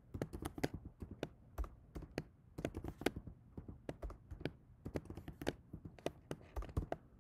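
Typing on a computer keyboard: quick, irregular keystrokes, with short pauses between runs.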